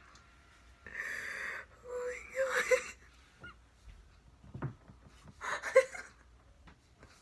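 A person's breathy, excited vocal noises: wheezy gasps and squeals in three short bursts, about a second in, around two to three seconds in, and near six seconds.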